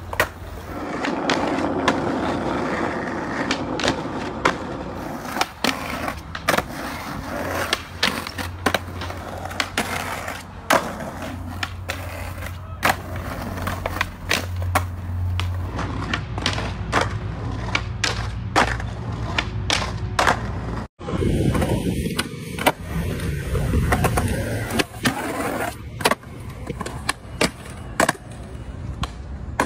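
Skateboard wheels rolling on stone paving, with sharp pops, board slaps on landing, and trucks scraping along stone ledges. There is a short break about two-thirds through.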